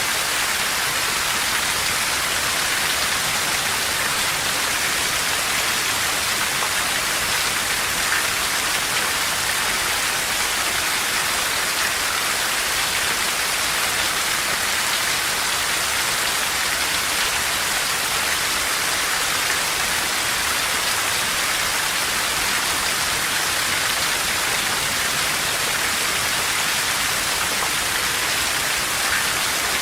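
Steady heavy rain, an even hiss of falling drops, with no thunder or other sounds standing out.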